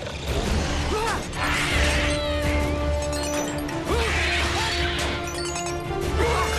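Animated-series soundtrack: music with held synthetic sci-fi tones, short chirping glides and a pulsing low beat, mixed with crashing sound effects of equipment being smashed.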